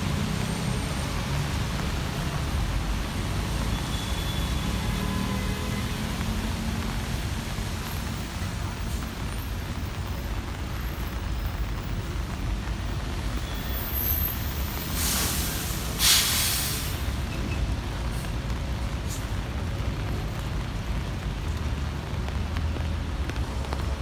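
Heavy rain and road traffic on wet city streets: a steady hiss over a low traffic rumble. About two-thirds of the way through, a louder sharp hiss rises and lasts about two seconds.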